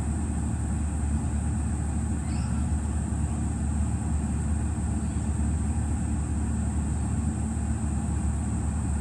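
Audi TT engine idling: a steady, unchanging low rumble.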